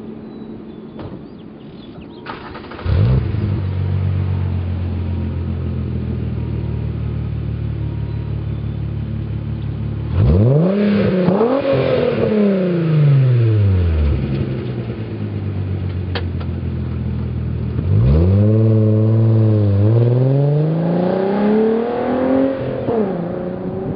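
1998 VW GTI's 2.8-litre VR6 engine, breathing through an Autotech 2.5-inch catback exhaust, starts about three seconds in and settles into a steady idle. About ten seconds in it is reved once, rising sharply and falling back to idle. Near the end it accelerates away, its pitch dropping twice at upshifts.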